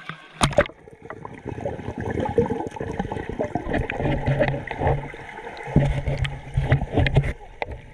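Water splashing and gurgling, busy and continuous, with many short sharp knocks and splashes throughout.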